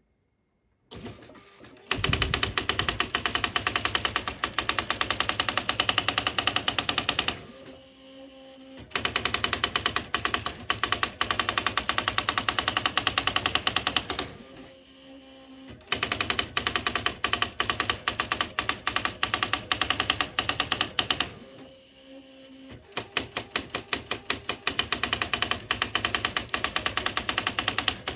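Smith Corona SD 680 electronic typewriter printing: runs of rapid, even key strikes lasting about five seconds each, broken by short pauses of one to two seconds with a faint motor hum, four times over.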